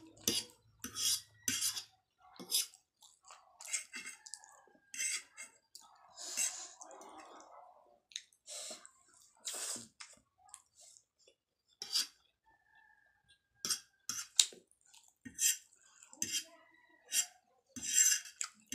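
A metal fork clinking and scraping on a ceramic plate as chowmein noodles are scooped up, with close chewing in between. The clicks come irregularly, one or two a second.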